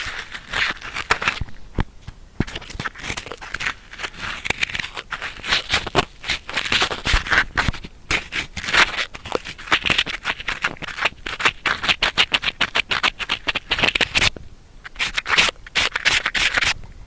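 Sticky cotton swab scratching and rubbing in an ear for ear-cleaning ASMR: a dense run of close-up crackling scrapes that stops briefly about three quarters of the way through, then resumes.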